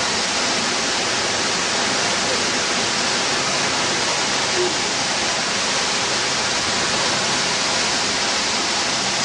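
Waterfall and stream water rushing steadily over rocks.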